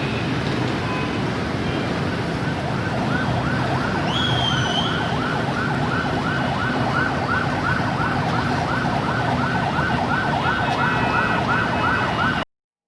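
Vehicle siren yelping rapidly, about three rises and falls a second, over steady street traffic noise; all sound cuts off suddenly near the end.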